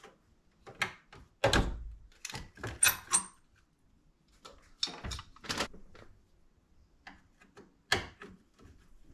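Plastic dash trim of a Jeep Wrangler TJ being handled and pulled at around the stereo: a series of separate clicks and knocks, with a few louder thunks spread through.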